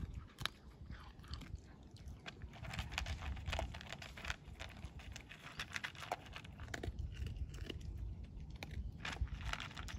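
A dog chewing dry kibble from a plastic bowl, with irregular crunches and clicks as it bites and chews.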